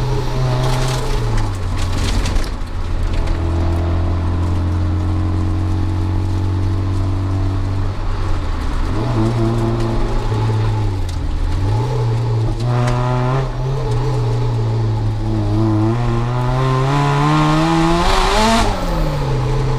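Supercharged Mazda MX-5's 1.8-litre BP-ZE four-cylinder through a decat exhaust, held at fairly steady revs with a few dips and rises. Near the end the revs climb steadily to a peak, then drop sharply as the throttle is lifted.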